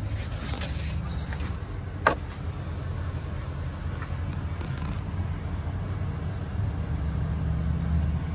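Ford 6.8-litre V10 gas engine of a Class C motorhome idling steadily, with one sharp click about two seconds in.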